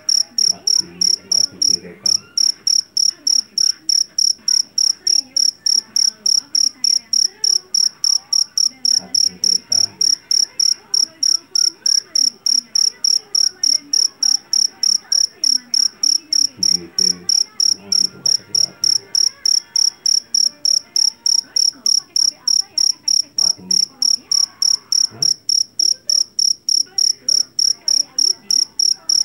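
Jangkrik jeliteng field cricket calling: a loud, high-pitched chirp repeated steadily and evenly, about three chirps a second.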